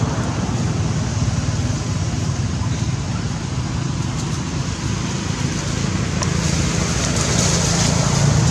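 Steady low rumble with a hiss of outdoor background noise, with a few faint clicks after the middle.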